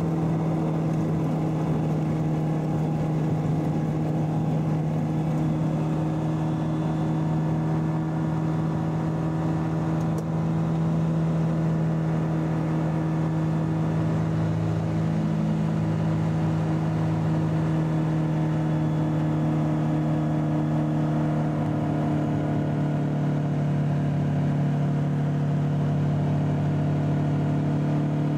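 Ultralight aircraft's propeller engine running steadily at high power through the takeoff and climb, heard from inside the cockpit as a constant low drone.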